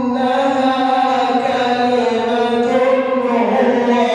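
A male Quran reciter chanting in melodic tajweed style, holding long drawn-out notes that slowly rise and fall in pitch.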